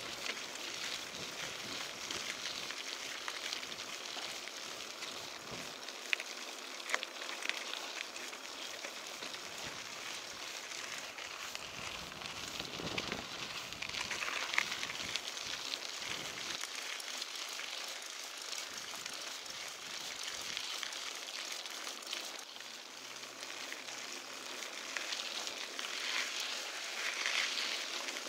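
Mountain bike tyres rolling over a gravel dirt road: a steady crackling hiss of grit under the tyres, with scattered sharp clicks from small stones.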